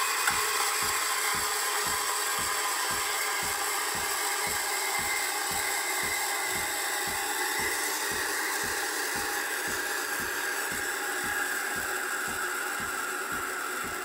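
Gastroback espresso machine's steam wand blowing steam into a jug of water and vinegar to clean the wand: a steady hiss, with the machine's pump chugging in low pulses about three times a second.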